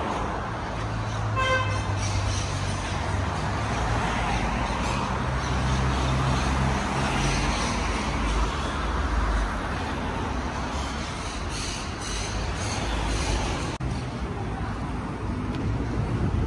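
City street traffic noise: car engines running and passing, with a short high beep about one and a half seconds in.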